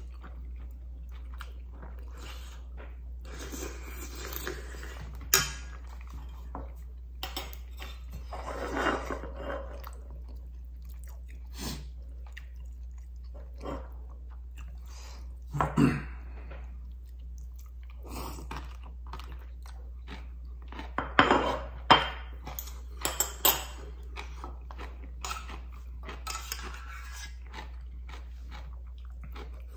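Close eating sounds: chewing ramyeon, rice and crunchy kimchi, with sharp clinks of chopsticks against a stainless steel pot now and then, the loudest a few seconds in, about halfway and around two-thirds of the way through. A steady low hum runs underneath.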